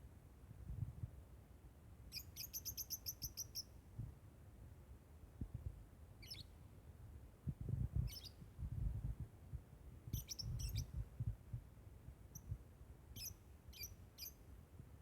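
Lovebird giving high-pitched chirps: a fast run of about eight about two seconds in, then single chirps and short clusters every second or two. A low rumble with irregular thumps runs underneath.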